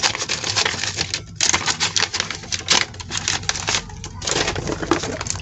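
Packaging being handled: a foil anti-static bag crinkling and things rustling in a cardboard box, a dense, irregular run of quick crackles and taps.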